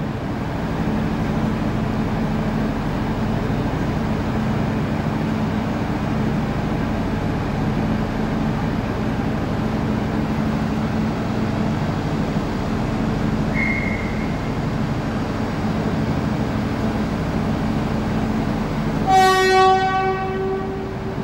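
Diesel passenger train standing at the platform, its engines idling with a steady low hum. A brief high beep sounds about two-thirds of the way through, then the train's horn sounds for about two seconds near the end, as a signal before it departs.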